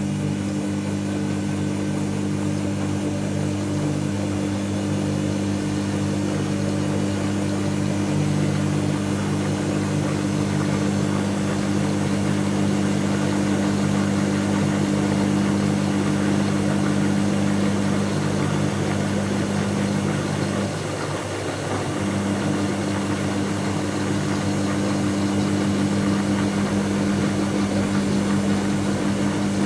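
Dyson Contrarotator CR01 washing machine spinning at a steady speed, its motor giving a loud, even hum. About 21 s in the hum wavers and dips briefly, then carries on as before.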